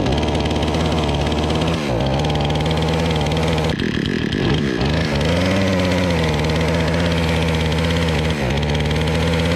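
Remington RM4620 two-stroke chainsaw engine running under the throttle. Its revs sag and recover about three times, the longest sag about four seconds in, and it never climbs to full revs: the saw is bogging and won't rev up. The owner puts the fault down to a dirty saw and a clogged spark arrester.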